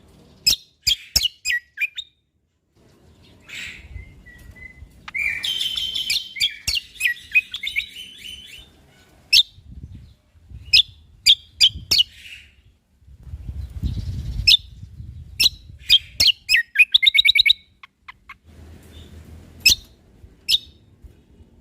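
Cucak kombo (kecial kombok) singing in bursts of sharp, high chipping notes that drop quickly in pitch. These are mixed with fast rattling trills, one about five seconds in and another near sixteen seconds.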